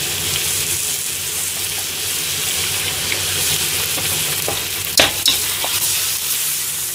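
Bok choy and pork sizzling in a hot wok while being stir-fried. About five seconds in, a metal ladle knocks and scrapes against the wok a few times, the loudest sounds in the stretch.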